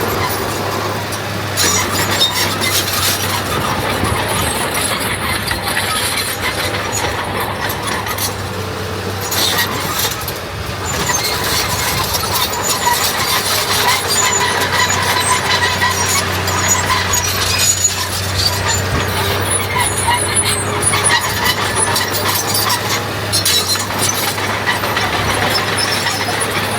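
Heavy earthmoving machinery at work: a diesel engine running steadily, with squealing, as from a bulldozer's steel tracks or a truck's brakes.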